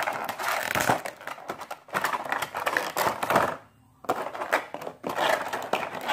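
Clear plastic wrap crinkling and crackling as it is peeled off a diecast model airplane and its plastic display tray, in several handfuls with a short pause about three and a half seconds in.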